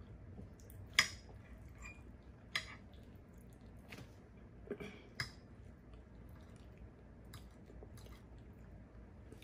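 A metal fork clinking and scraping against a glass dish as food is scooped up: a handful of sharp clicks, the loudest about a second in. Quiet chewing and mouth sounds come between them.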